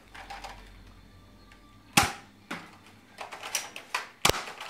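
Nerf Spectre REV-5 toy blaster being primed and fired: sharp plastic clacks, the loudest about two seconds in, then a quicker run of clicks and a sharp snap near the end.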